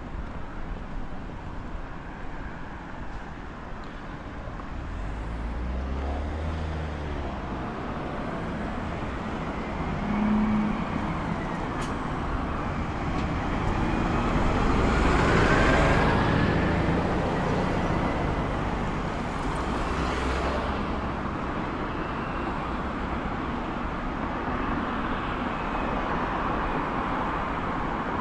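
City road traffic going by, a steady wash of cars and engines, with one vehicle passing close and loudest about halfway through.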